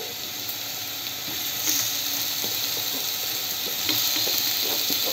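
Onions, capsicum and green chillies sizzling in hot oil in a kadai, a steady hiss. The sizzle gets louder about two seconds in and again near four seconds as cubes of paneer go into the pan.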